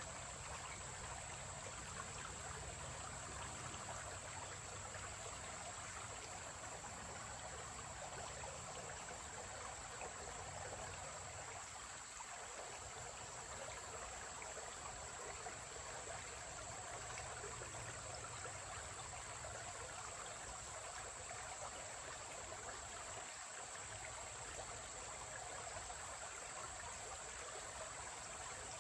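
Shallow creek trickling steadily over rocks and stones, with a steady high-pitched tone above the water.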